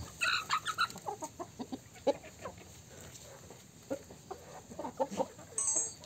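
Chickens clucking in short, scattered notes, with a quick run of higher, shriller calls in the first second.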